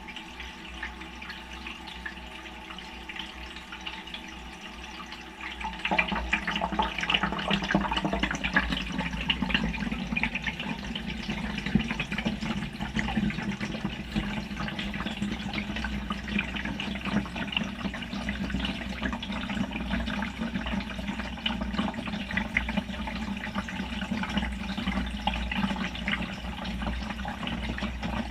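Water rushing into a BEKO washing machine's drum as it fills, heard from a camera inside the drum. A quieter hum comes first, then the inflow starts with a jump in level about six seconds in and runs on steadily.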